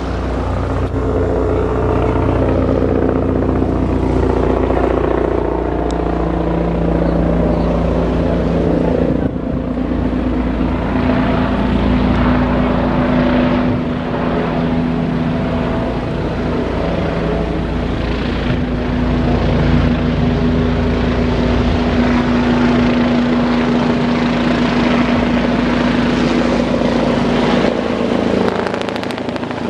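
Bell 429 twin-turbine helicopter on approach to land, getting closer, its turbine whine and rotor noise loud and steady with a held hum.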